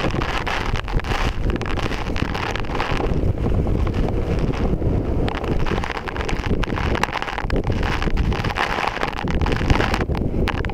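Wind-driven spray at the base of the American Falls buffeting the microphone, over the steady rush of the falling water, with many small ticks of droplets striking the camera.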